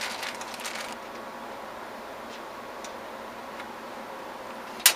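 Small clicks and ticks of motherboard standoffs and small computer parts being handled, a cluster in the first second and a few scattered ones after, with one sharp, loud click near the end.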